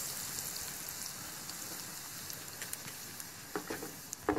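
Battered fish bajji deep-frying in a steel kadai of hot oil, a steady sizzle with small crackling pops. A few short knocks sound near the end.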